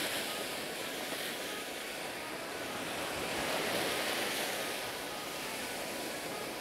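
Ocean surf washing onto a beach: a steady rushing noise that swells and eases slowly, twice.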